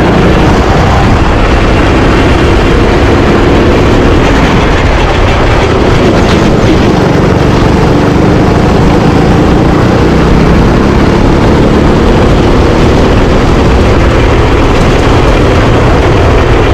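Rental kart's small engine running hard on track: a loud, steady drone whose pitch wavers a little as the kart speeds up and slows.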